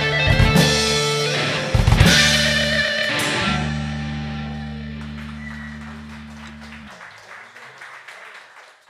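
Live rock band playing the final bars of a song: two loud drum-and-cymbal hits, then a held guitar and bass chord that rings, stops abruptly about seven seconds in, and fades away.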